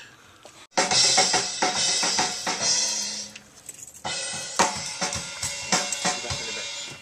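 A drum kit playing, with snare, bass drum and cymbals. There is a short break about three and a half seconds in, and then the drumming goes on more quietly.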